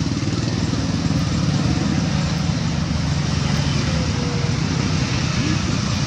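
A motor engine running steadily nearby: a continuous low hum with a hiss of noise above it.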